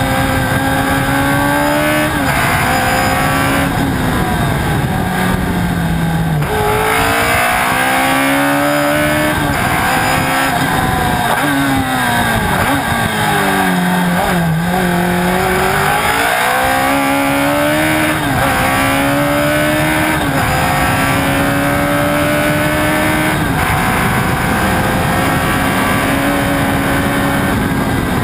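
Alfa Romeo T33 race car engine heard onboard at racing speed, with wind noise over it. The engine pitch falls through a braking stretch with downshifts about halfway through, then climbs again in steps as the car accelerates through the gears.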